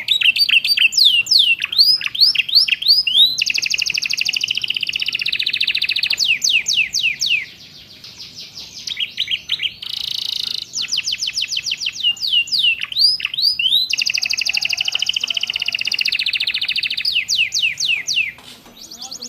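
Domestic canary singing a long song of quick, repeated down-slurred chirps alternating with fast buzzy trills, with a brief lull about seven and a half seconds in. The song carries phrases copied from ciblek and prenjak (prinias).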